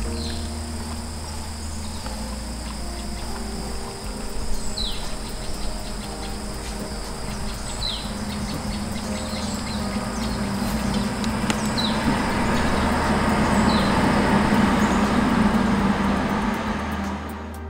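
Outdoor ambience: a bird gives short falling chirps every few seconds over a steady high insect drone. A broad rushing noise swells in the second half and eases off near the end.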